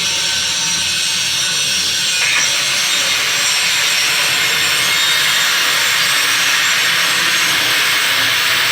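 Angle grinder grinding steel: a loud, steady, even hiss of abrasive on metal.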